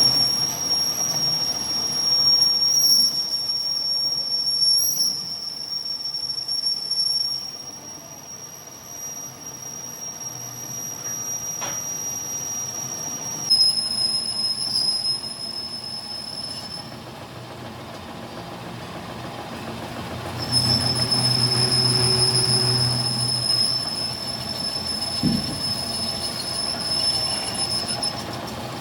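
Steel being machined, the cutting tool squealing with a steady high-pitched whistle over the machine's running, in three long stretches that stop and start again.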